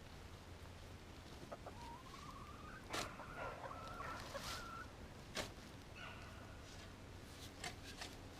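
Chicken calling faintly: a drawn-out rising call in the middle, a shorter call near the end, and two sharp clicks along the way.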